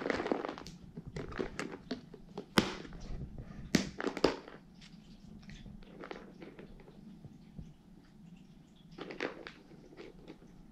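Cats crunching dry cat treats off the floor: irregular crackly crunches, with a few sharp, loud cracks a few seconds in.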